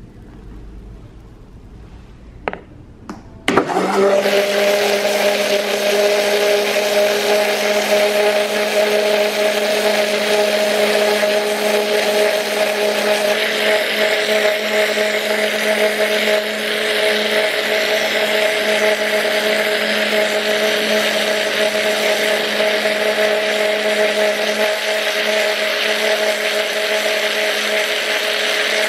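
Countertop blender starting after a couple of clicks about three and a half seconds in, then running steadily with a constant hum as it blends a liquid mix of milk, onion and olives into a swirling vortex.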